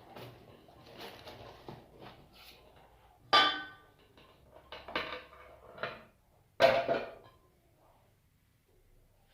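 Kitchenware being handled: some rustling, then two sharp ringing clanks of metal kitchenware being set down or knocked, about three seconds in and again near seven seconds, with a few lighter clinks between.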